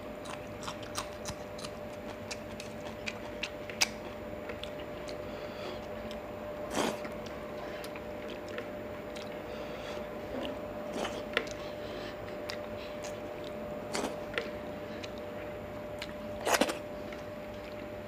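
Close-up mouth sounds of a man eating rice and fried fish by hand: chewing, wet lip smacks and small clicks. Sharper crunchy bites come at about 4, 7, 11, 14 and 16 seconds in, and fingers squish through the fish and rice.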